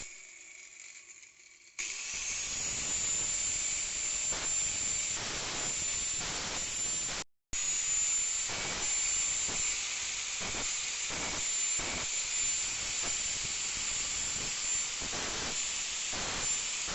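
Power rotary cutting tool spinning up with a rising high whine about two seconds in, then cutting steadily through the edge of a cracked cymbal with a hissing, squealing grind. It cuts out for a moment about halfway through and starts again.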